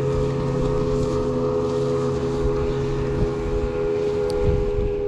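Steady drone of a motorboat engine running at a constant speed, holding several even tones, with the deepest tone dropping out about three seconds in. Low wind rumble on the microphone underneath.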